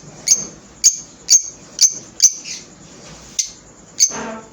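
Pet lovebirds calling with short, sharp, high-pitched chirps, about two a second, with a pause of about a second midway. A brief, rougher and lower sound comes near the end.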